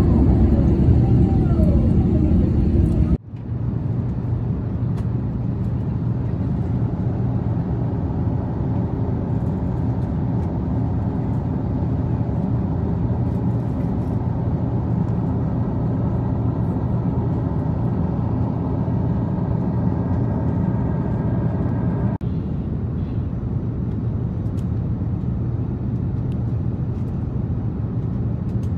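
Steady drone of airliner cabin noise in cruise, engine and airflow heard from a window seat, with a low hum and a faint higher whine running through it. The noise breaks off abruptly about three seconds in and briefly again some twenty seconds in, where the recording cuts between clips.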